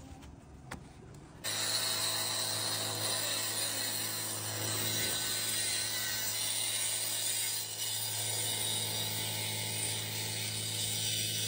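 Angle grinder running steadily as its wheel cuts into a brick chimney wall along the roof flashing, throwing up masonry dust. It comes in abruptly about a second and a half in.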